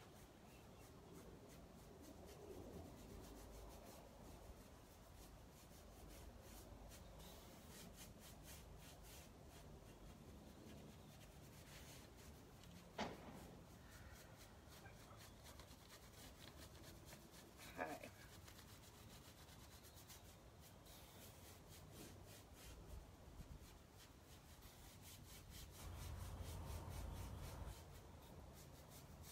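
Faint rubbing of a paintbrush scrubbing wet clay paint onto a wooden dresser while blending colours, with two light knocks midway.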